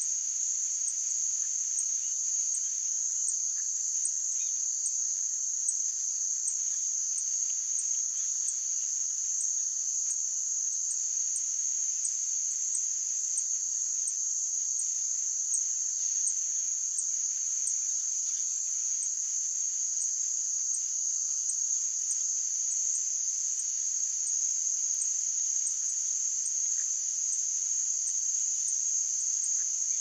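Steady high-pitched insect chorus trilling without a break. Faint short low notes come about every two seconds near the start and again near the end.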